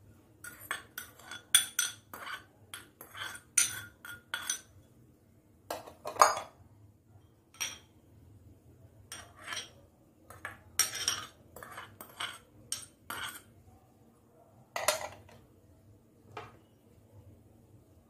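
Steel spoon clinking and scraping against bowls as chopped vegetables are scooped out and tipped into a salad bowl. The clinks are sharp and ringing and come in irregular runs, with the loudest about six seconds in and again near fifteen seconds.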